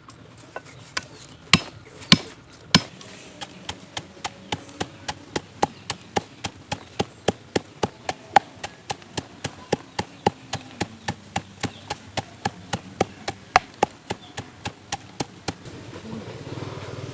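Food being struck in preparation: a few uneven knocks, then a steady run of sharp strikes about three a second that stops a little before the end.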